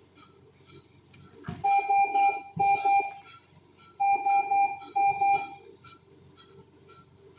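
Electronic medical monitor alarm sounding in two bursts of rapid beeps. Underneath, a monitor gives a short beep about twice a second.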